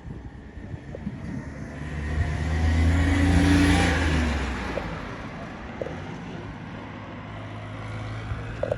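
A motor vehicle passes on the road over the bridge, its engine and tyre noise swelling to a peak about three to four seconds in and then fading away, leaving a fainter low engine hum.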